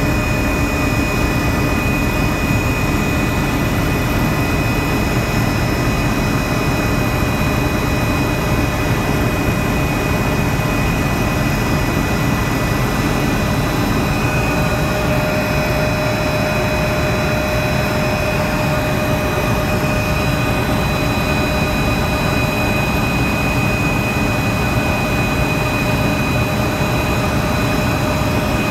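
Helicopter in flight, heard from inside the cabin: a loud, steady engine and rotor drone with several constant high whining tones over it.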